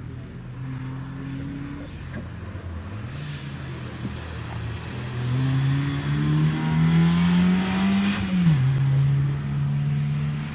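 Car engine on an autoslalom run. The revs climb steadily and grow louder over several seconds, then the pitch falls sharply about eight and a half seconds in and the engine runs on steadily.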